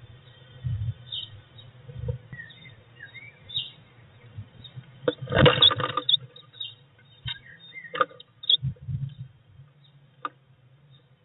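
Blue tit moving inside a wooden nest box: a flurry of wingbeats and scrabbling claws about five seconds in as it drops from the wall to the floor, then a few sharp taps and scratches on the wooden floor. Faint bird chirps come through early on.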